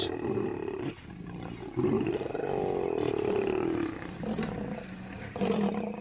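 Lions snarling and roaring in a fight, a nomad male charging lionesses that are defending their cubs. A long snarling roar comes about two seconds in and lasts some two seconds, with shorter snarls before and after it.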